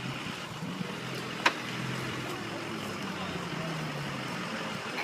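Off-road 4x4 vehicle engine running, its pitch drifting slowly up and down, with one sharp knock about one and a half seconds in.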